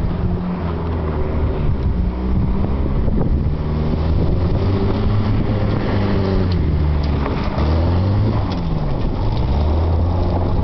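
Nissan pickup's engine revving hard while it drifts on loose dirt, its pitch climbing and dropping several times as the throttle is worked.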